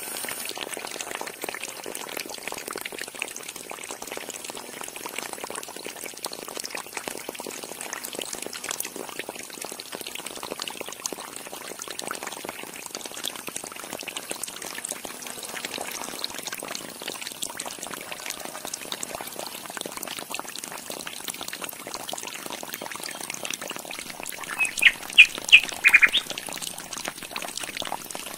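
Water pouring from a small pump's outlet pipe into a shallow concrete trough, a steady splashing trickle. Near the end come a few short, loud, high calls.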